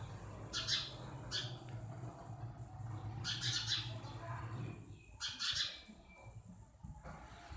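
House sparrows chirping in short, scattered bursts, about four in a row with gaps between them.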